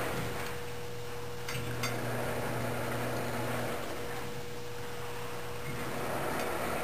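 Steady background hum with a faint high steady tone over an even hiss, and two faint clicks about a second and a half in.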